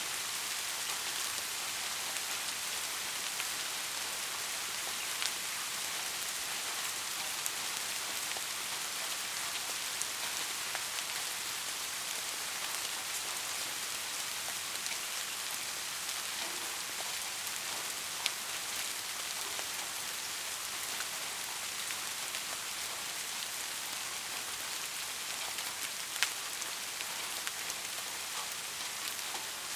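Steady rain falling, an even hiss with a few sharper single drop hits now and then.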